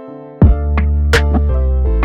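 Background music: soft keyboard notes, then about half a second in an electronic beat comes in with deep bass and sharp drum hits.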